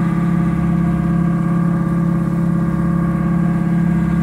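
A fishing boat's engine running steadily under way, an even hum that holds the same pitch throughout.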